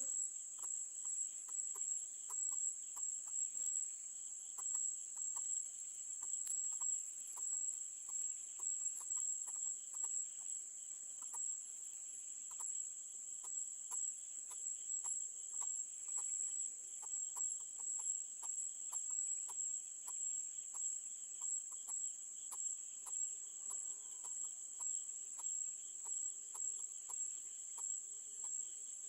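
Crickets chirring in a steady high-pitched drone, with a quick regular ticking about two times a second over it. Faint low calls come in about halfway through and again near the end.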